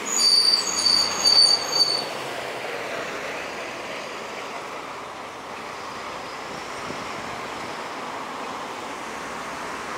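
A loud, pulsing high-pitched squeal for about the first two seconds, then the steady tyre and engine noise of road vehicles driving past.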